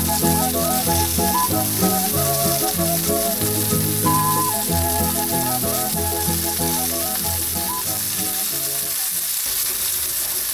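Breaded pork cutlets sizzling as they fry in vegetable oil in a cast-iron pan, a steady hiss, under background music with a melody and bass line. The music thins out after about eight seconds while the sizzling goes on.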